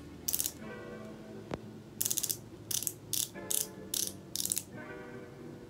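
About seven short bursts of rapid clicking, close together and mostly in the second half, over soft background music.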